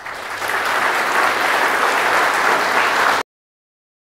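Audience applauding at the end of a talk, swelling over the first second and then steady, cut off abruptly about three seconds in.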